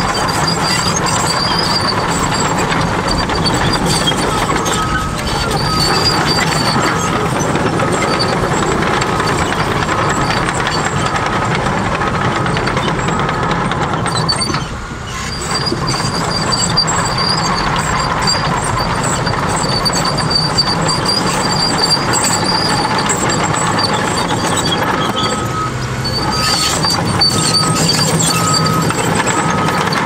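Cat D6T bulldozer's diesel engine running under load as it pushes soil, with the steel tracks clanking and squealing. Evenly spaced beeping, typical of a back-up alarm, comes in two stretches, near the middle and near the end.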